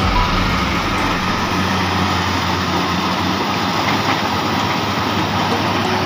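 Combine harvester running steadily in a cornfield, its engine and harvesting machinery making a dense, even mechanical noise.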